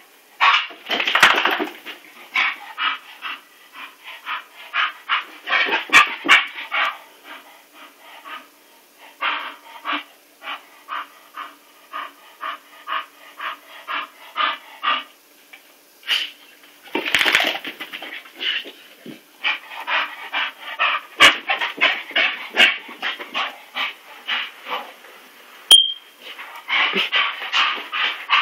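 English Bull Terrier panting hard in quick, even puffs, about three or four a second, in long runs broken by short pauses, with a few sharp knocks.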